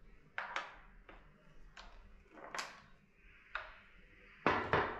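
The action of an 1830s Kuchenreuter bellows airgun being worked by hand: a series of separate metallic clicks and knocks, the loudest two close together near the end.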